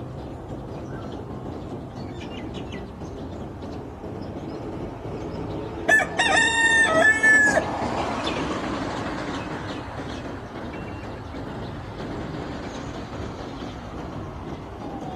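A rooster crows once, loudly, about six seconds in: a crow of under two seconds in a few linked parts. A steady low rumbling noise runs underneath.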